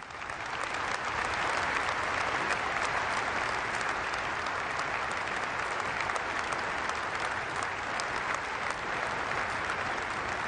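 Large audience applauding: a dense clapping that swells up in the first second and then holds steady.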